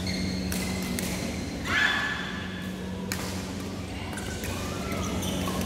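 Badminton rally: rackets strike the shuttlecock several times with sharp cracks, and a shoe squeaks on the court floor about two seconds in. A steady low hum runs underneath.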